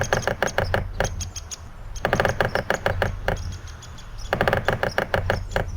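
Woodpecker tapping on wood in three rapid rolls of sharp knocks, each about a second long, with about a second's pause between them.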